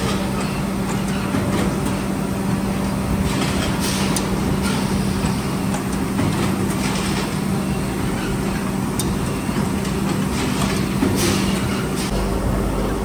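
Factory machinery running: a steady hum over a constant noise, with scattered sharp clicks.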